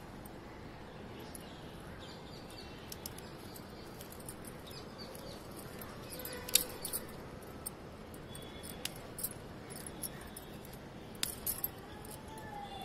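Scattered sharp clicks and light jangling clinks, the loudest about six and a half seconds in and a cluster near the end, as okra pods are picked by hand by a wrist wearing bangles, over a steady faint hiss.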